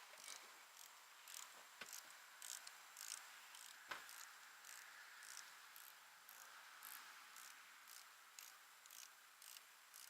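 Faint insect chirping: short, high pulses repeating about twice a second, with two soft clicks near the start.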